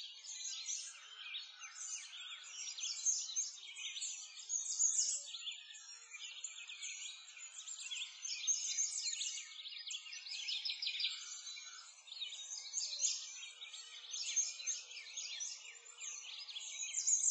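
Birds chirping together: many quick high chirps and trills, with no engine sound.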